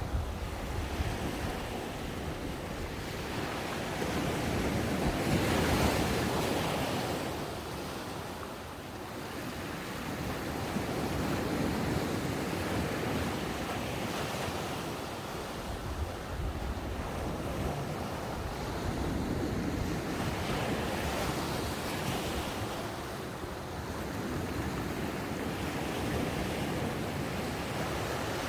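Ocean waves breaking on a sandy beach, the surf swelling and easing every few seconds. Wind buffets the microphone, adding a low rumble.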